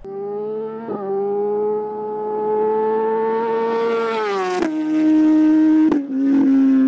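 BMW S1000RR inline-four superbike through a Racefit exhaust, accelerating hard past the camera. The engine note climbs steadily, then drops sharply twice as it shifts up, with a sharp crack at each shift, and is loudest just after it goes by.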